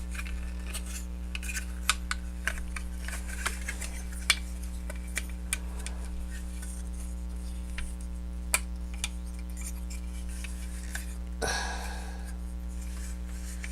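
Plastic joints and parts of a transforming toy robot figure clicking and rubbing as it is handled, in scattered sharp clicks, over a steady low electrical hum.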